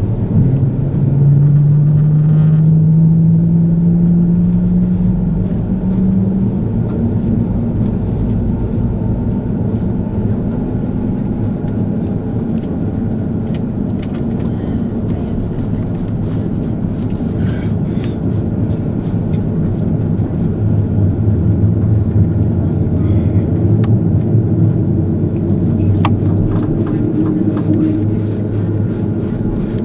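Cabin noise of an Airbus A330-200 taxiing, heard from a window seat over the wing: a steady low rumble of engines and airframe. An engine tone rises in pitch over the first few seconds.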